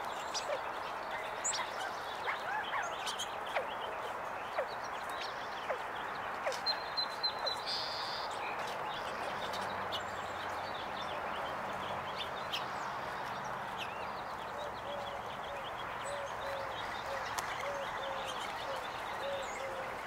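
Small songbirds chirping in the background over a steady outdoor hiss, with a cluster of sharp taps between about two and eight seconds in. Near the end a short low note repeats about twice a second.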